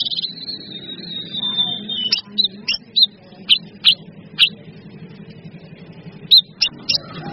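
Recorded songbird song from a masteran track of leafbirds and bulbuls: one long high whistled note held for about two seconds, then a quick run of short sharp chirps, a pause, and more sharp chirps near the end. A steady low hum lies underneath.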